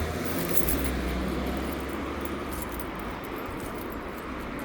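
Road traffic going by: a steady rumble of engines and tyres, with light metallic jingling ticks now and then.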